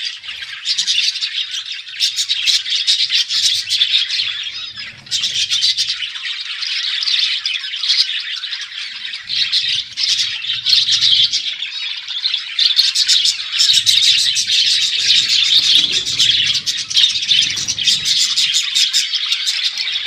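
Flock of budgerigars chattering and chirping continuously, a dense overlapping warble of fast, high-pitched chirps from many birds.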